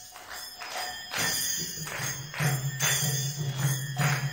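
Devotional music: small hand cymbals struck in an even beat about twice a second, joined about a second in by a low steady drone.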